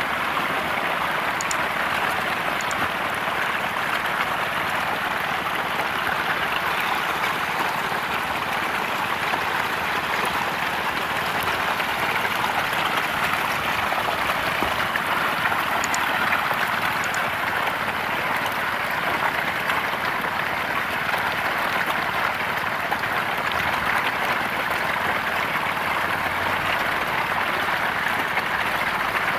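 Hundreds of catfish thrashing and splashing at a pond's surface in a feeding frenzy over pellet feed, a steady, dense splashing of water.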